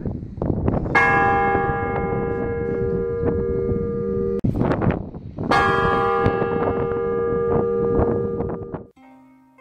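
A large bell struck twice, about four and a half seconds apart, each stroke ringing on with many steady tones that slowly fade. Wind buffets the microphone throughout. Near the end the sound cuts to soft plucked-string music.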